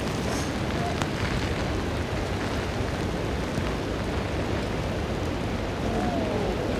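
Strong wind blowing across an outdoor microphone: a steady, dense rush of noise, heaviest in the low end.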